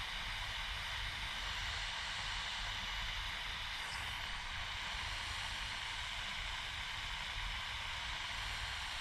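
Steady hiss of a handheld butane heat tool burning at its hot-air tip, shrinking heat-shrink tubing over a soldered wire splice.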